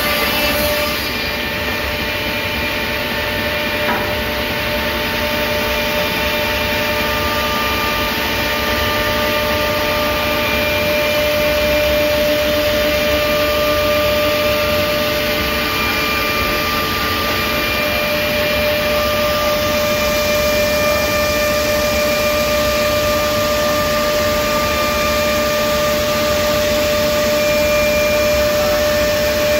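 PRINZ CUTSTAR 11 kW package trimming saw running as its cutting unit travels through a stationary stack of timber. It gives a loud, steady whine over a rushing noise.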